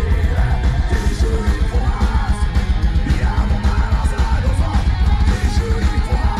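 Live heavy metal played loud on a festival stage: distorted electric guitars over fast drums, with yelled vocals.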